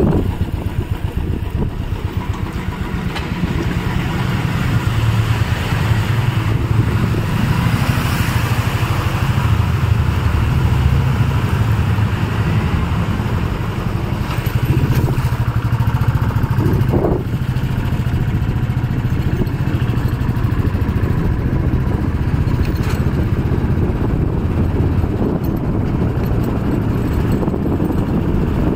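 A motor vehicle engine running steadily with a low hum, with a brief higher sound about seventeen seconds in.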